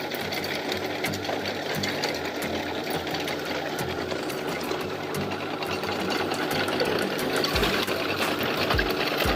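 Backhoe's diesel engine running steadily with a fast mechanical clatter, getting a little louder near the end.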